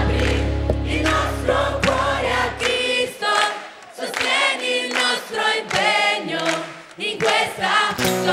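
Large mixed youth choir singing a gospel song. A low bass accompaniment under the voices fades out about three seconds in, leaving the choir singing short phrases on its own.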